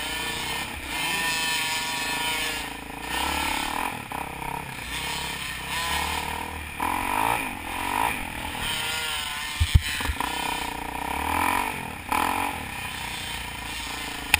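Dirt bike engine heard from on board, revving up and dropping off again and again through the gears, the pitch rising and falling every couple of seconds. Sharp knocks stand out about ten seconds in and at the very end.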